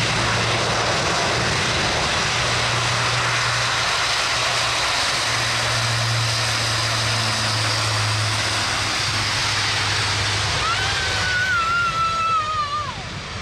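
Airbus A400M military transport's four TP400 turboprop engines at takeoff power: a steady roar with a low propeller hum as the aircraft rolls down the runway and lifts off. Near the end a high, wavering, whistle-like tone cuts in and falls in pitch.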